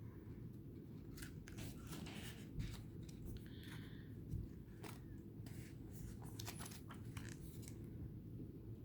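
Paper pages of a guidebook being turned one after another, a run of quiet, quick rustles and flicks.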